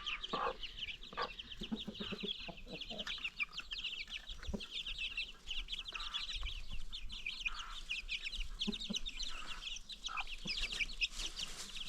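A flock of young chicks peeping constantly in short, high notes, with hens clucking now and then underneath.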